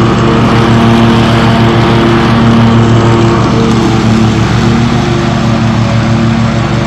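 Riding lawn mower's engine running steadily under throttle.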